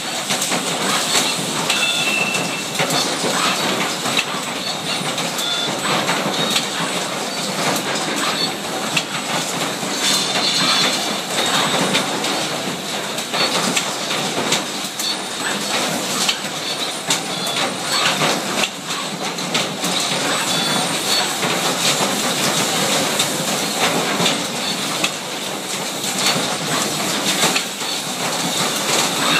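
Automated assembly cell with Fanuc picking robots running: a steady clatter of many small mechanical clicks and rattles from the robots, conveyor and assembly machine as plastic parts are picked and placed.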